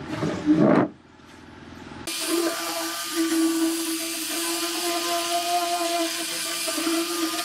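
A handheld angle grinder with a sanding disc starts about two seconds in and runs steadily on a wooden tabletop, a constant motor whine over the hiss of the abrasive on the wood. Before it, a brief loud scrape near the start.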